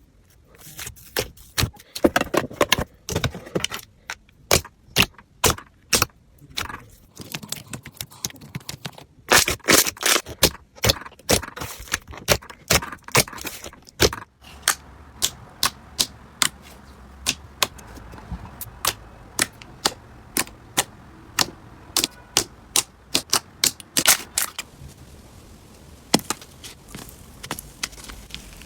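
Slime being played with by hand, giving many sharp clicks and pops: dense clusters at first, then spaced out to about one or two a second.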